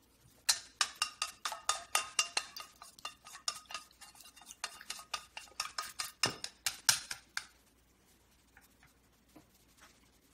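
Chopsticks beating raw eggs in a stainless steel bowl: rapid clicking taps against the metal, with the bowl ringing. The beating starts about half a second in and stops after about seven seconds, leaving a few faint taps.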